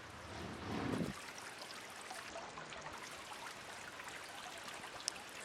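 Steady rush of running water, with a brief louder low sound about a second in and a few faint clicks.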